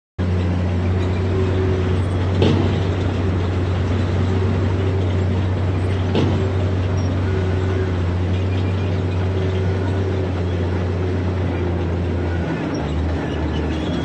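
Heavy diesel engine of earthmoving machinery running steadily under a strong low hum, with two sharp knocks a few seconds apart. The engine note wavers and breaks up near the end.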